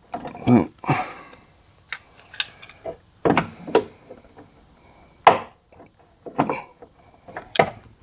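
Irregular metal clicks and knocks as the door check's pin and bar are worked by hand inside a car door, the loudest knock about five seconds in.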